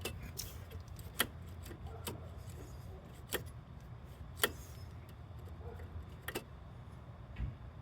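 About six sharp clicks, irregularly spaced, over a low steady hum. They are typical of the Ford Ranger's throttle pedal and cable being pushed and let snap back.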